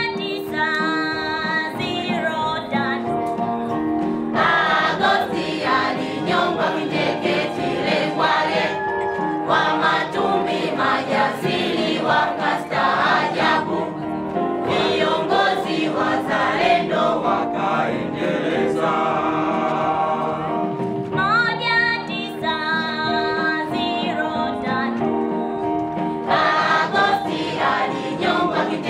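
A choir singing, several voices together, carrying on without a break.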